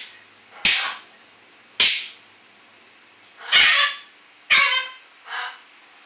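African grey parrot calling: a run of about five short, sharp, hissy squawks with pauses between them.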